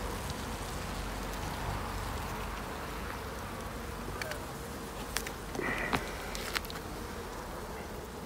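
Honeybees from an open hive humming steadily as a frame thick with bees is lifted out of the box, a calm colony. A few light clicks and a short squeak near the middle come from the wooden frame being handled.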